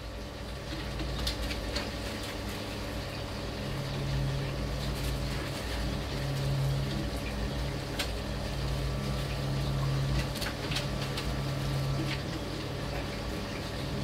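A steady low hum that swells and fades every second or two, with scattered light clicks and rustles from guinea pigs moving about in wood-shavings bedding.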